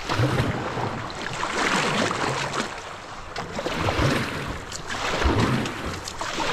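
Kayak in fast rapids: rushing, splashing river water, with wind buffeting the microphone and a few brief knocks.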